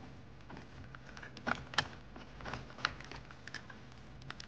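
Hands working plastic car trim and a wiring connector: irregular light clicks and taps, with a few sharper clicks about one and a half to three seconds in.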